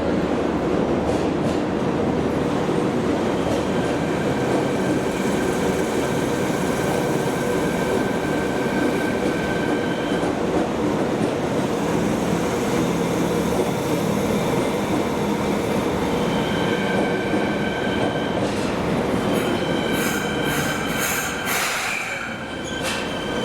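Fukuoka City Subway 1000N series train running through a tunnel, heard from inside the car: steady wheel-on-rail rumble with a motor whine that fades in and out, and a run of sharp clicks near the end.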